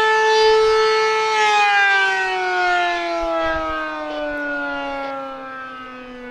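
ACA P-10 eight-port outdoor warning siren sounding the Attack signal: its tone holds steady, then just over a second in begins a slow fall in pitch, growing quieter as it winds down.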